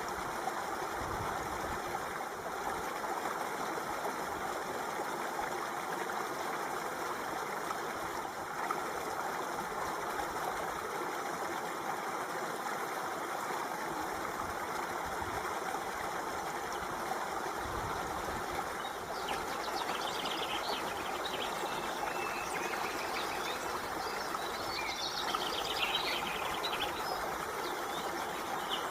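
Water flowing steadily, a stream-like rush. From about two-thirds of the way through, high chirps join it for several seconds.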